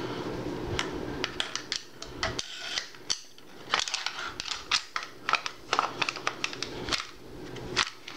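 Steel parts of a Uk vz. 59 machine gun being handled and fitted together during reassembly, giving irregular sharp metallic clicks and clacks.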